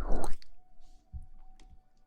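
Close-miked ASMR rustling rubbed against the microphone, stopping about half a second in. Faint soft thumps and a faint steady tone follow.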